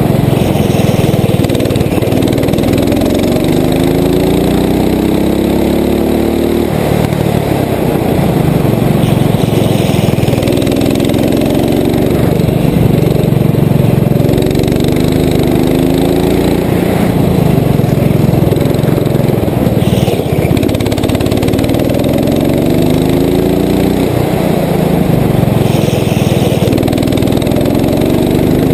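Rental go-kart's engine at full race pace, heard from on board: its pitch climbs for a few seconds as the kart accelerates, then drops back as the driver lifts for the next corner, over and over.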